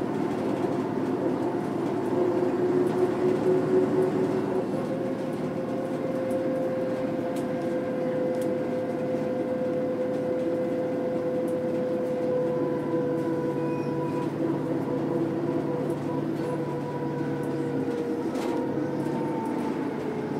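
Mercedes-Benz O405 bus with its OM447H six-cylinder diesel and ZF 4HP500 four-speed automatic gearbox running under way. A steady whine sits over the engine rumble and slowly falls in pitch through the second half.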